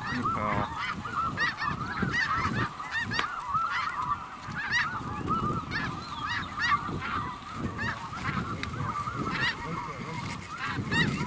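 Snow geese calling: a dense chorus of short, overlapping honks.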